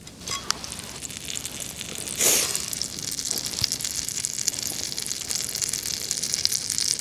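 Food sizzling in a hot pan: a louder hiss about two seconds in, then a steady sizzle full of fine crackles.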